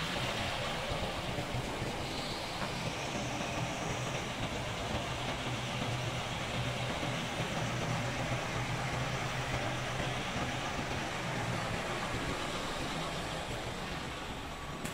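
Heavy semi-truck's diesel engine running at low speed as the tractor and its low-bed trailer roll slowly past close by. A steady low drone comes over tyre and road rumble, strongest midway and easing a little near the end.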